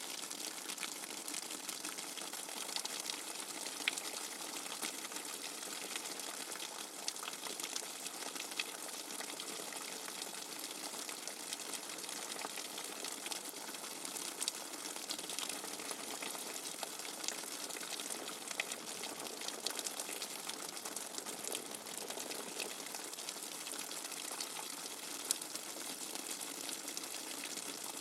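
Steady, even rush of running water, with faint scattered ticks and splashes through it, played as white noise for sleep.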